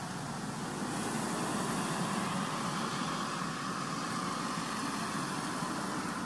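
Steady background rumble of road traffic, growing a little louder about a second in.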